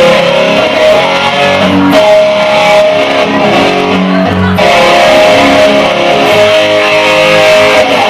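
Amplified electric lap steel guitar played with a slide bar, holding long sustained notes that change every second or two.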